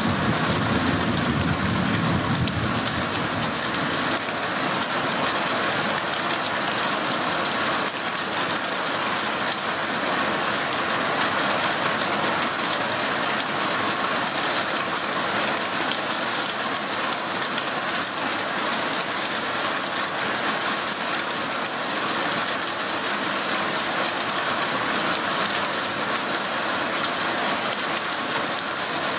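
Heavy storm downpour pelting the roof overhead in a steady, loud, dense patter. A low thunder rumble fades out in the first few seconds.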